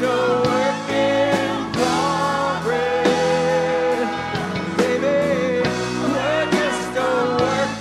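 Live rock band playing: drum kit, electric guitars, bass and keyboards, with a held, wavering lead melody line on top that sounds like wordless singing.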